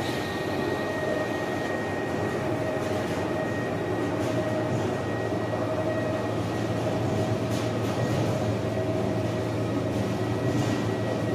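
Soap-making machinery running steadily: a stainless-steel mixer churning soap chips, with a steady motor hum and a high tone held throughout.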